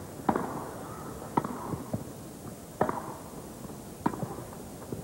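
Tennis rally: rackets striking the ball four times, sharp hits a little over a second apart as the two players trade groundstrokes.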